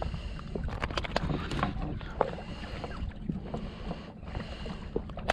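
Steady low rumble of a small boat at sea, with scattered sharp clicks and taps from hands handling fishing line and a small red snapper.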